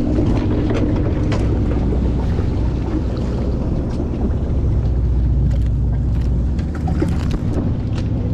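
Sportfishing boat's engine running steadily with a low hum, with scattered light clicks and knocks on deck.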